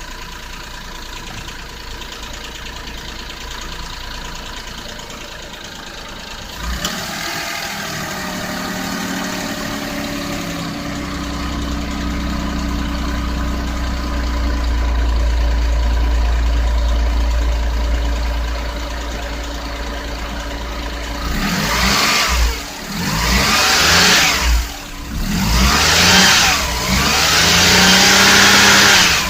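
Nissan Otti H91W kei car engine running under the open bonnet, the abnormal engine-room noise being checked: steady at first, then louder, then revved up and down several times over the last several seconds.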